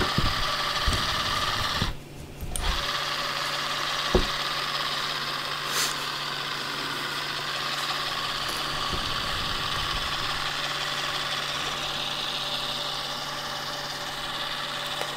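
Small electric motor of a homemade peanut butter and jelly gun running steadily as it pumps peanut butter and jelly out of its nozzle; it cuts out briefly about two seconds in, then runs on.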